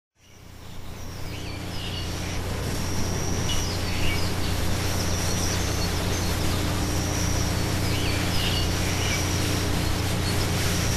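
Small birds chirping now and then over a steady hiss and low hum of outdoor ambience, fading in over the first second or two.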